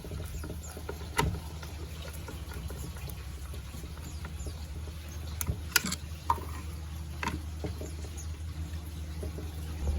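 A 6-inch speaker in a miniature sound-system box, driven by a PAM8610 amplifier, playing steady deep bass, with scattered sharp clicks and crackles over it.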